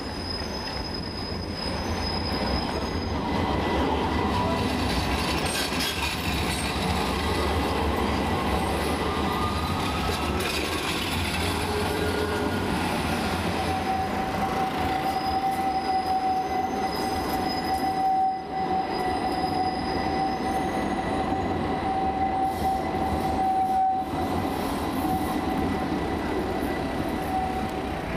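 Modern street trams running past on street track, two of them passing each other, with steel wheels squealing on the rails in one long, steady high whine from about halfway through.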